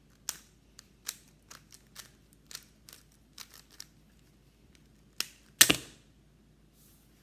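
3x3 Rubik's cube layers being turned by hand: about a dozen sharp plastic clicks at an uneven pace, with a louder double clack about five and a half seconds in.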